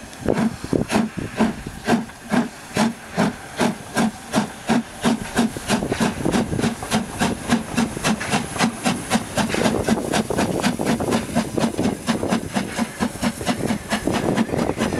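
Harz narrow-gauge 2-10-2 steam tank locomotive (DR class 99.72, 99 7238-1) working hard under way, its exhaust chuffs quickening from about two to three a second. From about ten seconds in, as the engine passes, the chuffs blur into a steadier rush of steam and the rolling coaches.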